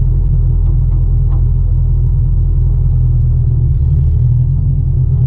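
Ford 8N tractor's four-cylinder flathead engine running steadily under load while brush hogging, a loud low rumble that shifts slightly about four seconds in.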